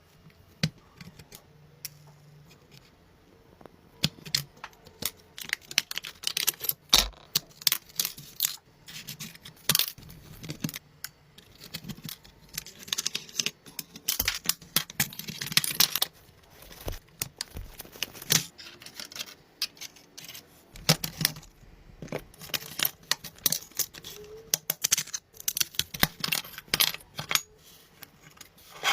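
An irregular clatter of sharp clicks, taps and short scrapes from hand work with tools and small hard parts. It is sparse for the first few seconds, then busy.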